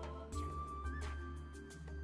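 Background music: held notes over a low sustained bass, with soft percussive hits at roughly even intervals.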